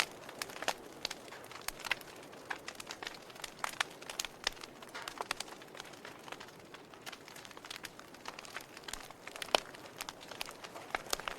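Logs burning in a fireplace, crackling with irregular sharp pops over a soft hiss; the loudest pop comes about nine and a half seconds in.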